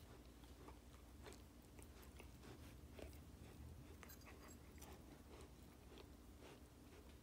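Faint chewing and licking of a teething American Akita puppy gnawing a plush toy: soft, irregular little clicks over a low steady background hum.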